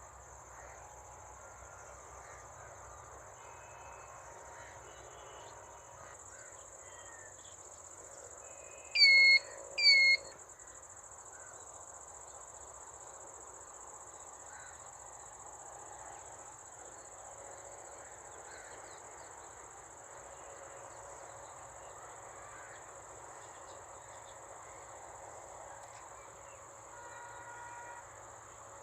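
Steady high-pitched insect drone, typical of crickets, with faint scattered bird chirps. About a third of the way in come two loud, short calls about a second apart, each ending in a quick downward flick.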